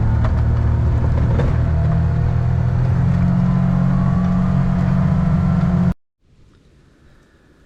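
Vehicle engine running under load as it drives off, its pitch rising slowly, cut off abruptly about six seconds in; then faint room noise.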